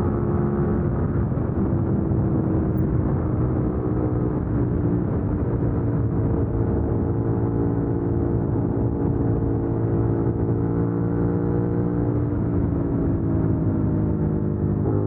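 Suzuki SV650X's 645 cc V-twin engine running at highway speed under a steady rush of wind noise, its pitch stepping a few times.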